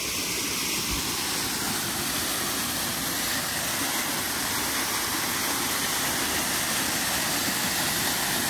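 Small waterfall, its water rushing in a steady, unbroken wash of noise.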